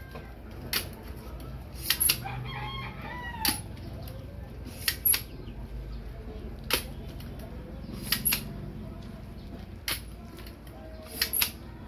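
Sharp snaps and clacks from a small homemade quick-reload speargun being shot into the ground and reloaded, one every second or so, several in quick pairs. A rooster crows about two seconds in.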